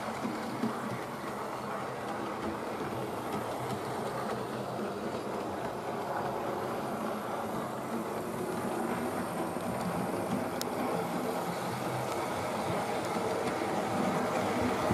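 A model railway locomotive and its coaches running on the track: a steady whirring and rolling of the motor and wheels on the rails, growing gradually louder as the train comes past.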